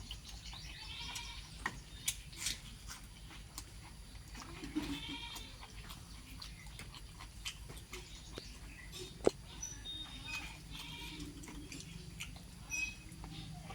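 A few short, wavering farm-animal calls, bleat-like, over scattered sharp clicks.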